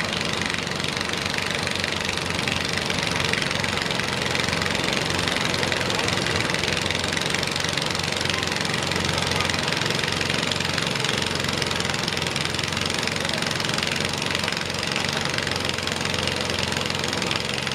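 Massey Ferguson garden tractor engine running steadily under load as the tractor drags a weight-transfer pulling sled.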